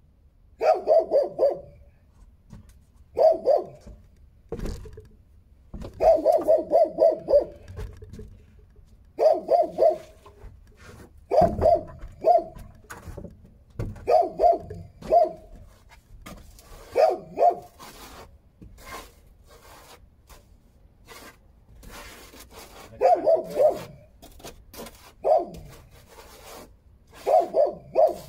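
A dog barking in repeated volleys of two to five quick barks, with pauses of a few seconds between volleys and a longer lull about two-thirds of the way through.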